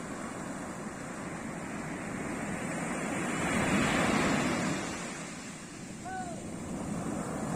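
Ocean surf washing up a beach, swelling loudest as a wave breaks about four seconds in and then easing off. A single short pitched call cuts in briefly about six seconds in.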